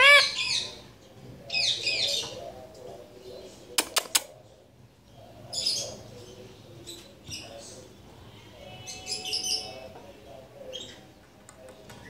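Indian ringneck parakeet giving short, high chirping calls in bursts every few seconds, the loudest right at the start. Three sharp clicks come close together about four seconds in.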